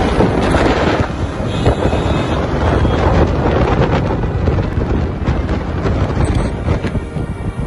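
Wind buffeting the microphone over the steady road noise of cars moving at highway speed.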